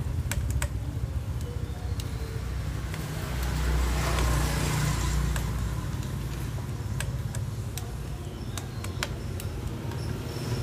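Steady low rumble with scattered light clicks and taps, and a brief rise of hiss about four seconds in.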